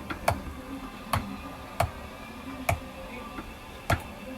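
A few sharp, light clicks or taps, about five of them at uneven intervals of roughly a second.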